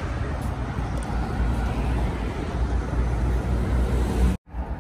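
Steady low rumbling noise with no clear tone, broken by a brief dropout to silence near the end.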